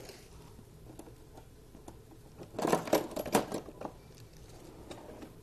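Metal kitchen utensils clattering and clinking in a drawer as someone rummages through it, with a short cluster of sharp clicks and knocks about halfway through.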